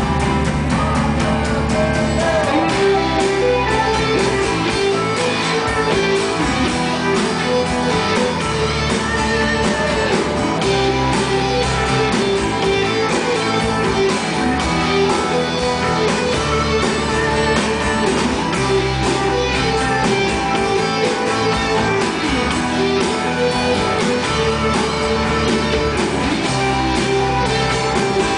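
Rock band playing live, a guitar-led instrumental passage with strummed guitar chords and no singing.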